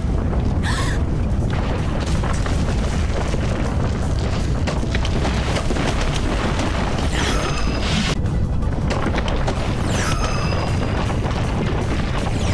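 Cartoon rumbling and crashing of boulders, a continuous heavy rumble, mixed with dramatic action music. Twice, around seven and ten seconds in, a descending swooshing tone cuts through.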